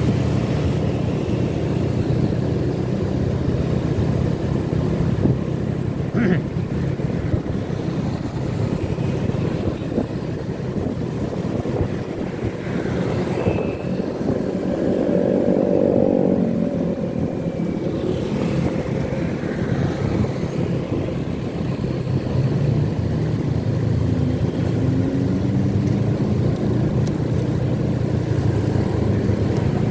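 Motorcycle riding in town traffic: a steady engine and road noise, with another vehicle's engine note swelling and fading about halfway through.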